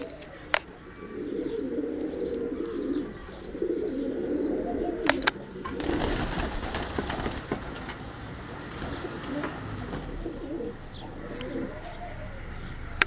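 Pigeons cooing in repeated low phrases, broken by a few sharp clicks; from about six seconds in the cooing weakens under a rough, noisy stretch.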